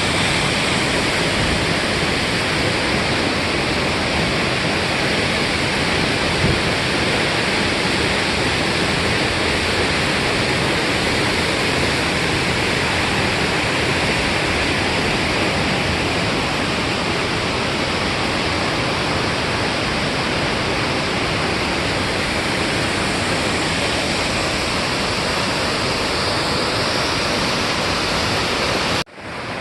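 A waterfall's steady rush of falling water, loud and even. It cuts out for a split second near the end and comes back a little quieter.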